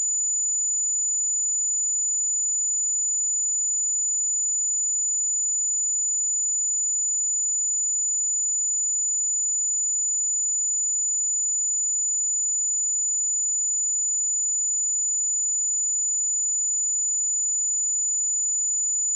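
A pure 6983 Hz sine-wave test tone: one steady, very high-pitched whistle at constant loudness, unbroken throughout.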